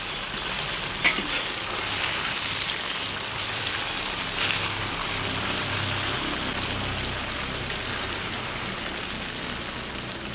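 Tofu slices frying in hot oil in a cast-iron wok, a steady sizzle, being fried golden on both sides.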